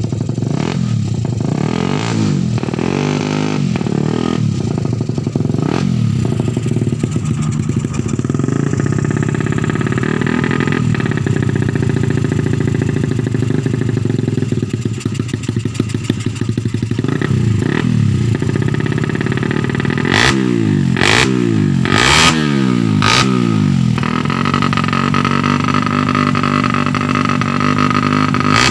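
Suzuki Satria FU 150 single-cylinder four-stroke engine, built with exhaust-profile camshafts on both intake and exhaust, revved over and over, its pitch climbing and dropping with each twist of the throttle. Its sound is called fiercer with these cams. In the last third it is blipped hard several times in quick succession.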